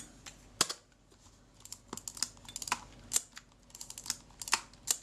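Small, irregular metallic clicks and ticks as the threaded retaining ring holding the shutter in a Kodak Retina IIa camera body is turned by hand, finger tight. The clicks come singly at first, then in quick little clusters.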